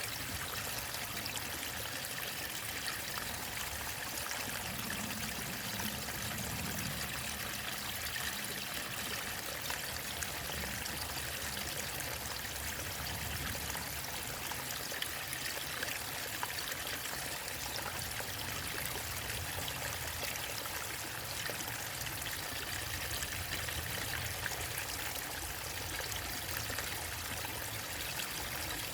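Small waterfall and stream running water, a steady rushing hiss with light trickling and splashing.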